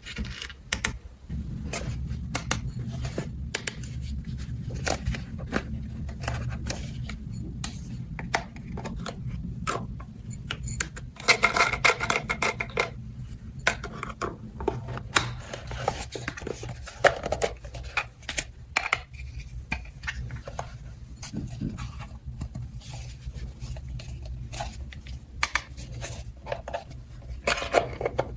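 Small hard plastic toy pieces being handled and set down: irregular clicks, taps and light clatter, busiest about twelve seconds in, over a steady low hum.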